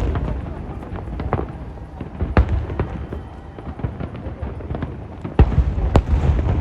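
Fireworks display: scattered sharp bangs over a continuous low rumble, with a dense burst of loud bangs near the end.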